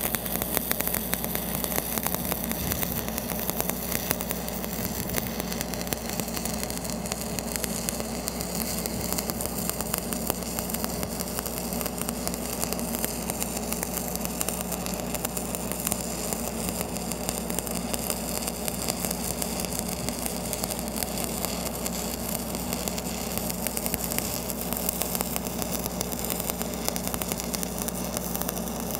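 Stick-welding arc crackling steadily as a 3/32-inch 7018 low-hydrogen rod burns in a cap pass at about 100 amps, over a steady engine hum.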